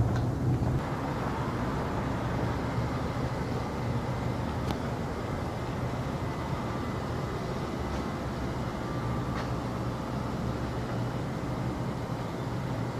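Steady outdoor background noise with a low hum and a few faint clicks; no distinct event stands out.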